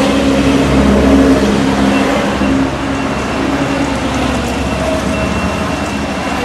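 Road traffic noise: a motor vehicle's engine humming steadily, over a low rumble.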